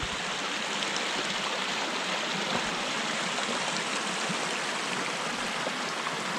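Stream running steadily: an even, unbroken rush of water.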